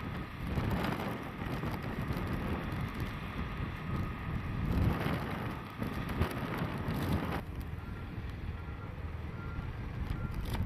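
DD14 rotary snowplow locomotive running, its diesel engine and rotary blower throwing snow off the track, heard as a rough rumbling noise mixed with wind on the microphone. The sound changes abruptly about seven seconds in to a steadier, somewhat quieter rumble.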